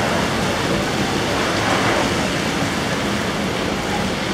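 Heavy rain falling steadily, with car tyres swishing through standing floodwater on the pavement.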